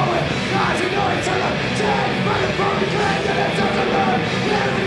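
Punk rock band playing live: loud, dense full-band music with electric guitars.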